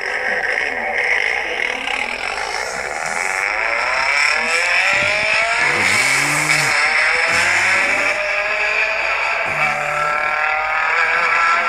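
Nissan Silvia engine running hard under load, its pitch climbing steadily for several seconds and then held high.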